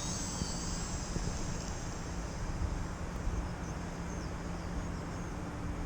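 Wind buffeting the microphone in a steady low rumble, with the faint high whine of a radio-controlled airplane's motor in the air.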